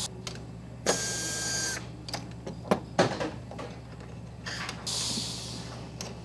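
Handheld electric screwdriver running for just under a second with a steady whine, driving a screw into a plastic scuba regulator second-stage housing. Sharp clicks of small metal parts being handled follow, and a shorter rushing noise comes about five seconds in.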